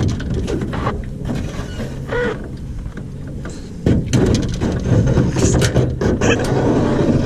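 Knocks and clatter of a small rental boat being launched and pushed off, with wind buffeting the microphone. The knocks are loudest and thickest in the second half.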